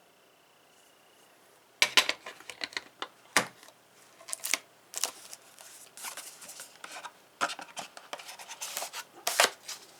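Hand tools being handled: irregular clicks, scrapes and rubbing of metal ratchets being set down and picked up, starting about two seconds in.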